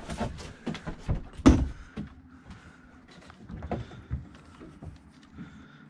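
Knocks and clatter of a landing net's handle and frame against the boat as it is grabbed and swung out. The loudest thump comes about a second and a half in, with a few lighter knocks around four seconds.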